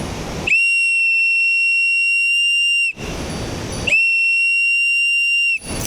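A hand whistle blown twice: two long, steady, high-pitched blasts, the first about two and a half seconds, the second a little shorter. Rushing stream water is heard in the gap between them.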